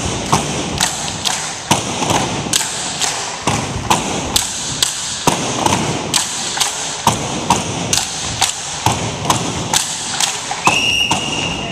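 Tinikling poles knocking on the gym floor and against each other in a steady beat, about two to three knocks a second. A high steady tone sounds near the end.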